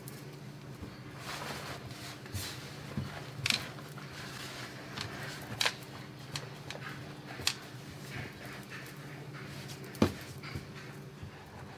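Terry-cloth towels rubbed and patted over washed friggitelli peppers to dry them on a wooden counter: soft rustling with scattered light knocks, over a low steady hum.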